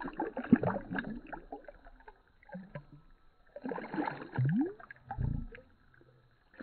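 Shallow river water splashing and lapping as a hand stirs it at the muddy shore, in two bouts of splashing with a lull between. A short rising tone sounds about four and a half seconds in, followed by a brief low rumble.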